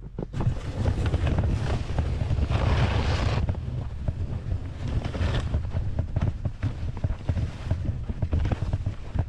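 Wind buffeting the microphone, a heavy uneven rumble, with a rushing noise that swells about three seconds in and again about five seconds in.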